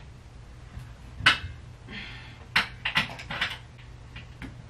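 A few scattered light knocks and clicks of a wooden bed frame and hand tools being handled during assembly, the sharpest about a second in and a quick cluster past the middle.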